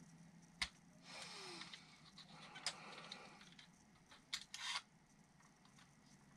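Faint handling sounds from a spring rate gauge being adjusted by hand: three sharp clicks spread out, the last followed by a brief scrape, with a soft breath near the start.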